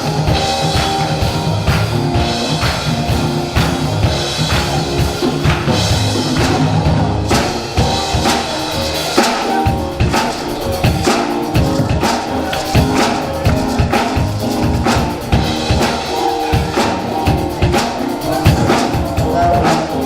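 Live gospel praise-and-worship music: a church band with a drum kit keeping a steady, driving beat under sustained instrument chords.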